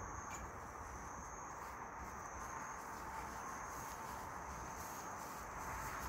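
Insects singing outdoors in a steady, continuous high-pitched drone.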